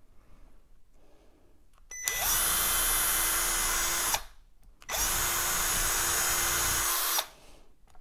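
Cordless drill with a 3/32-inch bit running at a steady speed, drilling holes into a rover wheel's hub. It runs twice, about two seconds each time: once starting about two seconds in, and again from about five seconds in, with a short pause between.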